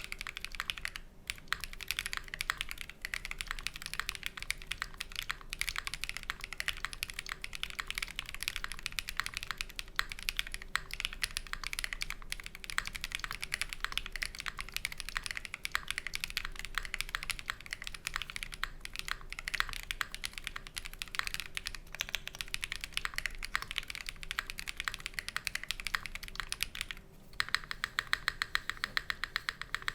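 Steady typing on an OwlLabs Mr. Suit custom mechanical keyboard fitted with lubed Quartz switches, lubed stabilizers and GMK keycaps. Near the end it changes to a fast, even run of repeated keystrokes. A faint steady fan hum sits underneath.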